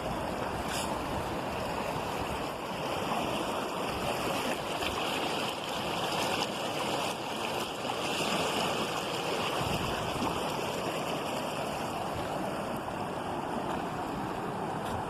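Waterfall water rushing steadily, an even unbroken noise.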